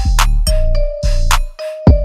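Background music with a steady electronic beat: deep bass kicks, sharp percussion hits and a held mid-pitched tone.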